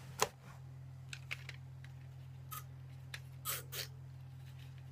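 Scattered small plastic clicks and taps as the cables and connectors of a laptop cooler's fans are handled and plugged in, the sharpest about a quarter second in, over a steady low hum.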